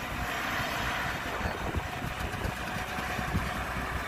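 Komatsu PC120 excavator's diesel engine running steadily as the machine swings its empty grapple back, a low continuous drone.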